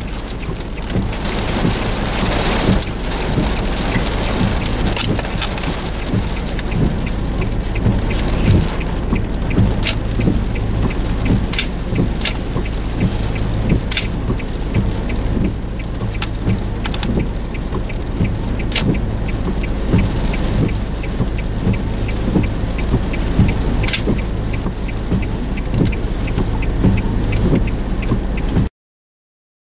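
Rain on a vehicle during a thunderstorm: a steady hiss over a low constant rumble, with scattered sharp taps of drops striking. The sound cuts off abruptly about a second before the end.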